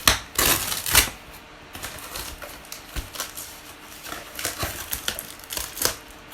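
Packing tape being scraped and torn on a taped cardboard parcel, with cardboard rustling and knocking in irregular bursts. The parcel is hard to open because it is heavily taped.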